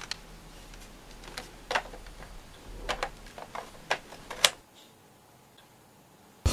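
Irregular small clicks and light knocks of hands handling small objects, about nine in the first four and a half seconds over a low hum, the loudest near the end of them; then only faint hiss.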